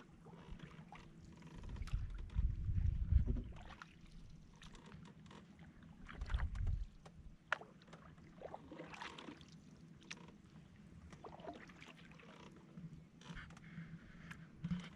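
Canoe being paddled: paddle strokes in the water with scattered small knocks and splashes, and two louder low rumbles about two and six seconds in.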